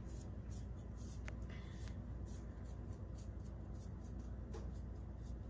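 Pastry brush stroking and dabbing egg wash onto raw pie crust: soft, irregular swishes about once or twice a second, over a steady low hum.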